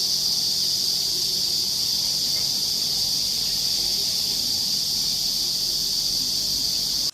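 A steady, continuous high-pitched buzzing chorus of insects that holds one even pitch and cuts off abruptly at the end.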